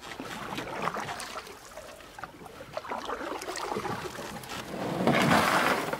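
Water lapping and trickling, with small irregular drips, swelling to a louder wash of water about five seconds in.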